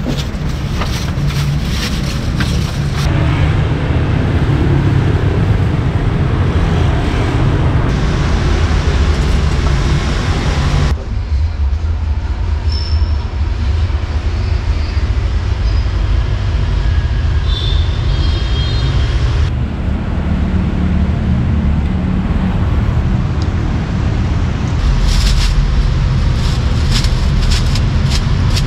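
Road traffic running past on a busy street: a steady low rumble of passing cars and motorbikes. Near the end, a run of sharp crinkling clicks as a plastic bag is handled.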